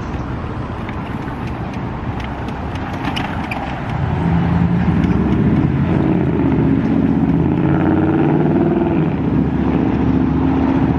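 City street traffic with a vehicle engine close by, its low hum growing louder about four seconds in and holding steady.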